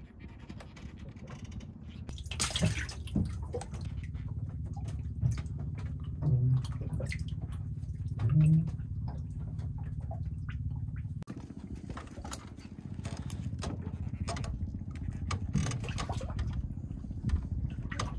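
Water slapping and splashing around a wooden fishing boat over a steady low rumble, with scattered knocks and clicks from handling the line and a louder rush of noise about two and a half seconds in.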